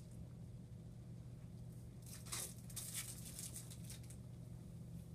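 Brief crinkling and rustling that starts about two seconds in and lasts about two seconds, over a steady low hum.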